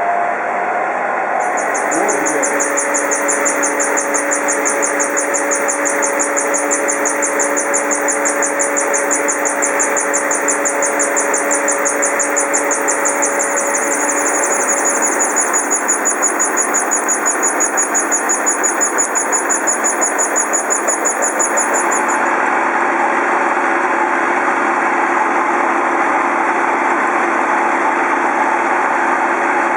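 Horizontal boring mill milling a part: continuous cutting and machine noise. A fast-pulsing high whine comes in about two seconds in and stops abruptly after about twenty seconds, while the steady machine noise carries on.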